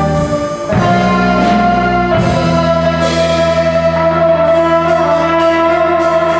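Jazz combo playing live, with clarinet or saxophone, trumpet, trombone, guitar, keyboard, bass and drums. A few sharp accents come in the first seconds, then from about two and a half seconds in the band holds one long chord.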